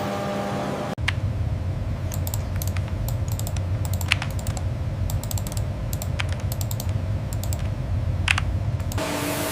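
Typing on a computer keyboard: irregular key clicks over a steady low hum. The typing starts suddenly about a second in, replacing a steady machine hum, and gives way to another steady hum near the end.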